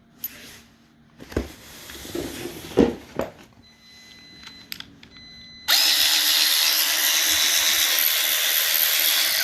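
A few knocks and clicks as the battery pack goes into an ACDelco ARW1218 extended 3/8-inch cordless ratchet, then, a little past halfway, the ratchet's motor starts and runs steadily for nearly four seconds before stopping.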